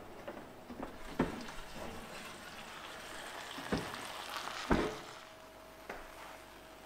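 Chicken breast sizzling in a hot pan just lifted from the oven, with a few sharp knocks of the pan and the oven door, the loudest near the end. The sizzle stops about five seconds in, leaving a faint steady hum.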